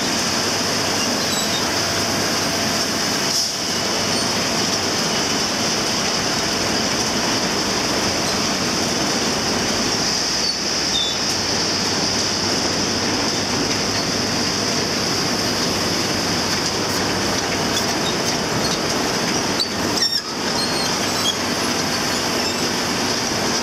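Palm oil mill nut recovery machinery running: polishing drum and chain conveyors carrying fibre and nuts, a steady loud mechanical noise with a constant high-pitched hiss over it.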